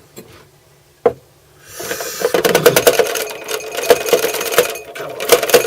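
A soldering iron stuck in its metal stand being rattled and jiggled free: a sharp click about a second in, then a loud, fast, uneven metallic rattle for about four seconds that stops near the end.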